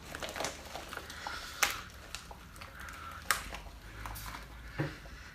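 Black latex hood being stretched and pulled down over the head, its rubber rubbing against the latex mask and suit, with a few sharp clicks as it is tugged into place.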